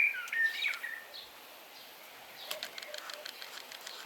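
A small bird singing, a quick run of whistled chirps in the first second, then quieter, with a scatter of light clicks and ticks in the second half.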